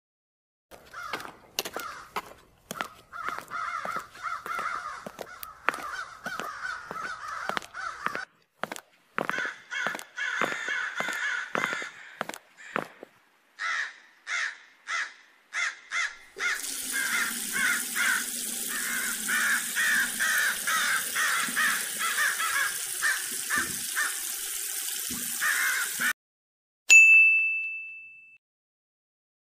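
Crows cawing over and over. About halfway through, a tap starts running, water splashing onto bare feet and wet tiles, and it cuts off suddenly; then a single bright ding chime rings once near the end.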